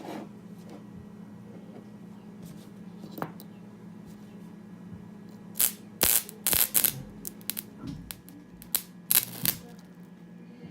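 Microwave oven transformer, converted to a high-current spot welder, humming steadily. Sharp crackling snaps come in a cluster about six seconds in and again near nine seconds, sparks where its output leads are touched to the metal of a broken speaker.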